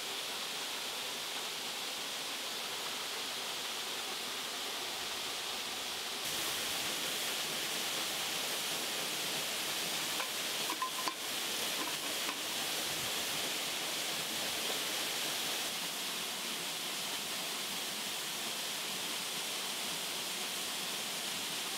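Steady rushing of a waterfall and stream, an even hiss that shifts slightly about six seconds in. Around ten to twelve seconds in, a few light metal clinks as an aluminium lid is set on a pot.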